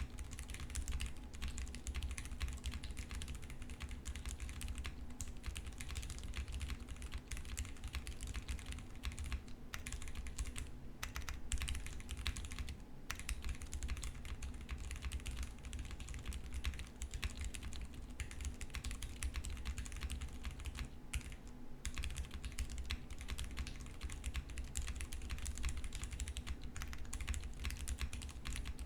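Fast continuous typing on a custom mechanical keyboard with lubed Cherry MX Brown tactile switches, an FR4 plate, a tape-modded PCB and GMK keycaps. It is a dense run of clacking keystrokes broken by a few short pauses.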